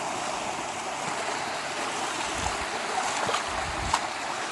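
Creek water rushing steadily over rock, with a couple of faint low thuds and small clicks in the second half.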